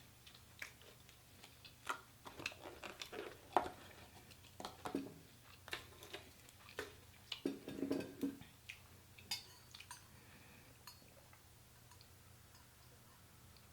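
A person chewing food close to the microphone, with irregular soft clicks and smacks of the mouth that die away after about ten seconds.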